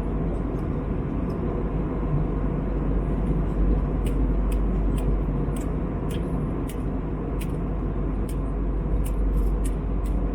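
Steady in-flight cabin noise of an Airbus A321neo: a constant rumble of engines and airflow. A scatter of faint, light ticks comes in about halfway through.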